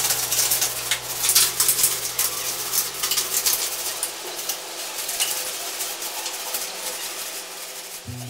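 Sheets of newspaper rustling and crinkling as they are handled and spread out, in quick irregular crackles.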